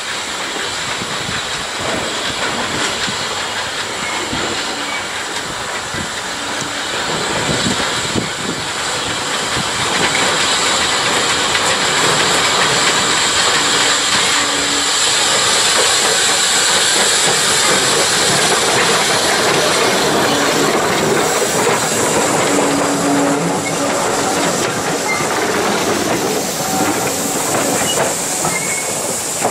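Small saddle-tank steam locomotive working under steam as it hauls a coach past, growing louder to a peak about halfway through and easing off near the end as it draws away.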